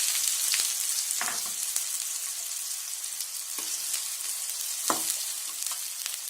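Chopped onions sizzling in hot oil in a pan, the sizzle slowly dying down, with a few short scrapes or knocks of a spoon stirring against the pan.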